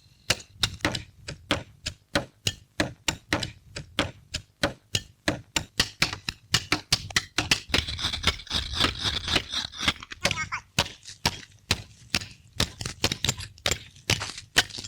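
Hand tools chopping into an oak log as it is rounded out into a waterwheel axle: rapid sharp wooden strikes, about four a second, with a rasping hiss mixed in around the middle.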